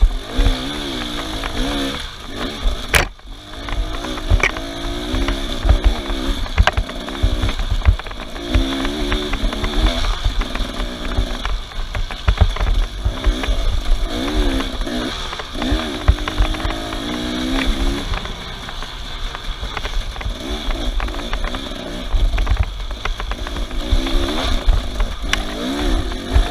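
Off-road vehicle engines revving, the pitch rising and falling over and over as they labour over rough ground, over a steady low rumble.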